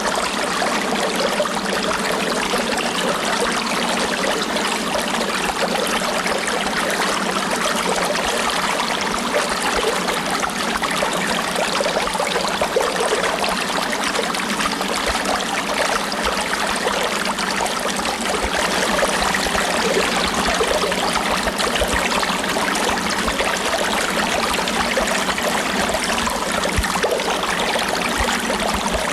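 Stream water flowing and babbling steadily, an even rushing with no pauses.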